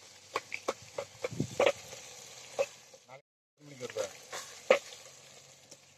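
Steel ladle stirring onions and chillies frying in a metal pan over a wood fire: a light steady sizzle with irregular clinks and scrapes of the ladle against the pan. The sound cuts out briefly a little past halfway.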